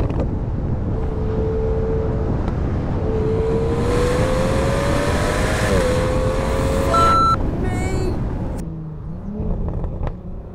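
Aston Martin V12 Speedster's twin-turbo V12 through a QuickSilver sports exhaust with active valves, pulling steadily on the move in the open cockpit. Its note climbs slowly, with heavy wind rush in the middle. About two seconds before the end the driver backs off and the engine note drops away.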